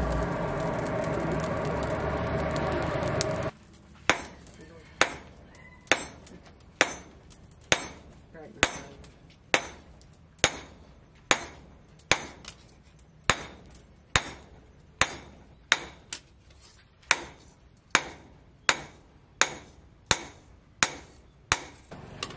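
A charcoal forge fire burns with a steady rushing noise, then cuts off about three and a half seconds in. A hand hammer then strikes a red-hot steel blade, forged from old chainsaw steel, on a steel post anvil, about one blow a second, each blow ringing briefly.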